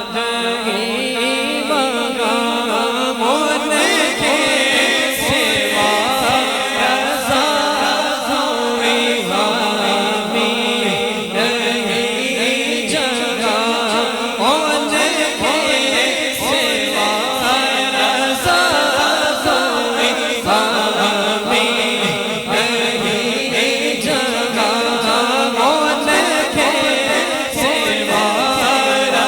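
Naat vocal music: voices chanting a slow, wavering melody with no instruments.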